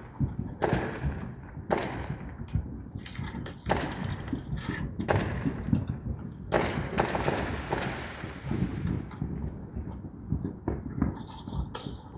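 Aerial fireworks going off: a string of irregularly spaced booms and bangs, each trailing off in a short echo.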